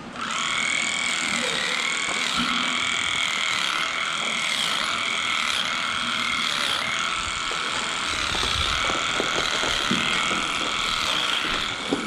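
Handheld electric animal clippers running with a steady high whine while cutting the long hair of a cow's tail switch. The motor switches on right at the beginning.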